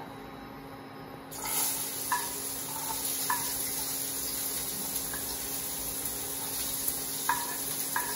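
Chopped onion dropped into a hot frying pan, sizzling steadily from about a second and a half in. A few light taps of a spatula are heard over it.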